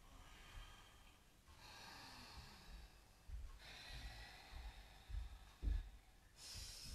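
Slow, deep breathing through the nose in imitation of Darth Vader's respirator, in long hissy breaths of about two seconds each. A couple of low thuds come near the end.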